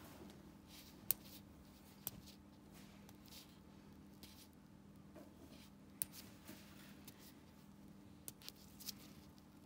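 Quiet, sharp clicks and faint scraping of a steel pedicure blade working at the edge of a toenail: one click about a second in, another a second later, one around the middle, and a quick run of three near the end, over a faint steady hum.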